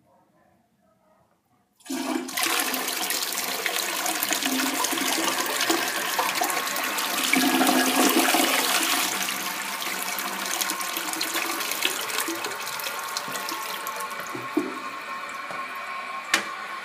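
Crane Plumbing Atlas tank toilet flushing: the water rush comes in suddenly about two seconds in, is loudest around the middle, then slowly eases off. This toilet's handle has to be held down for the flush to go through. A single sharp click near the end.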